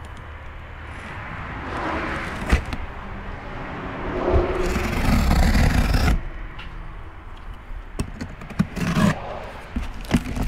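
Cardboard box being cut open and handled: rubbing and scraping of cardboard, with a louder rasping stretch of about a second and a half midway and a few sharp knocks.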